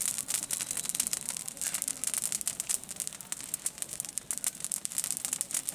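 Dry rice stalks and leaves rustling and crackling continuously as they are handled in the harvest.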